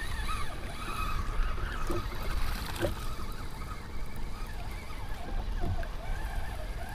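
Small choppy waves lapping against a kayak's hull, with wind rumbling on the microphone: a steady rush of water and air.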